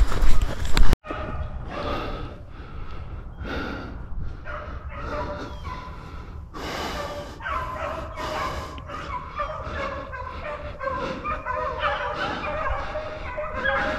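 A second of loud noise that cuts off abruptly, then a pack of beagles baying in full cry on a rabbit's track, the calls growing thicker toward the end.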